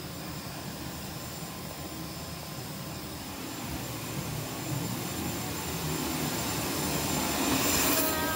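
Jet aircraft engine running steadily, a broad rushing hum with a thin high whine over it, growing louder toward the end.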